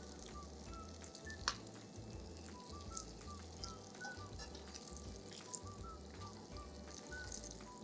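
Floured sea bass fillets frying gently in olive oil with shallot in a nonstick pan, a low sizzle as they are turned, with a single sharp tap about a second and a half in. Soft background music with short high notes plays underneath.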